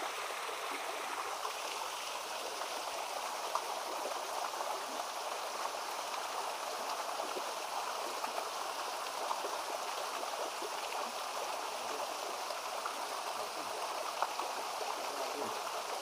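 Small forest stream running steadily, a constant rush of water, with a few faint clicks near the start, middle and end.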